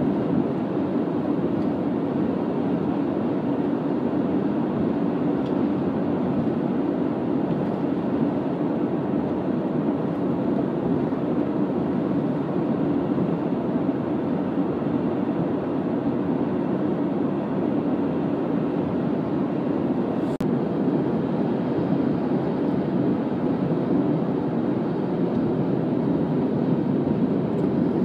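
Steady low road rumble inside a moving car's cabin: tyres running on a snow-dusted highway, with the car's engine.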